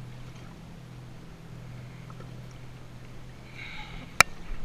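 Jet ski engine idling with a steady low hum, and a single sharp click a little after four seconds in.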